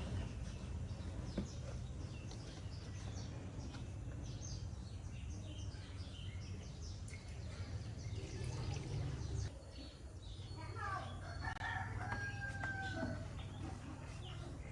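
A rooster crowing once, starting about ten and a half seconds in, with a long held note near its end. Short high chirps and a steady low rumble run underneath.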